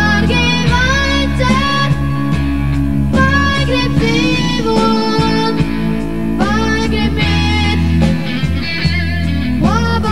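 Live pop-rock band music: a boy singing lead over electric guitar, bass guitar and drum kit.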